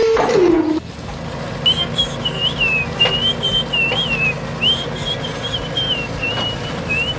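A machine whine slides down in pitch and stops within the first second. Then a wavering whistled tune in short phrases runs over a steady low hum, with a couple of light clicks.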